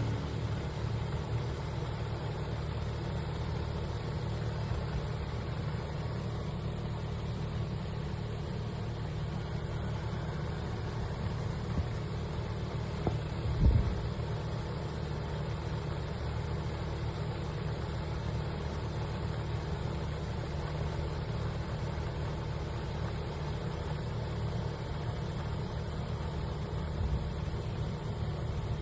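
Steady low rumble of a vehicle engine idling, with one brief low thump about halfway through.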